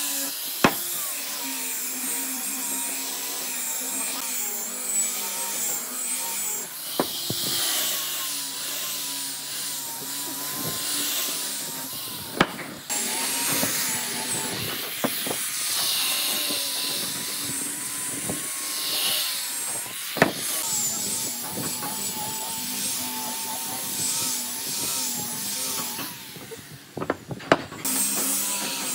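Angle grinder with a sanding disc running against a hardwood board: a steady motor whine that wavers in pitch as the disc is pressed and moved over the wood, with the hiss of the abrasive. It drops off briefly twice, around 12 seconds and near the end, and a few sharp knocks stand out.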